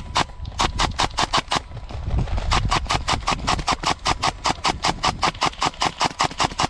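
Airsoft gun firing a rapid, even string of shots, about six to seven a second, with a short break and a low rumble about two seconds in.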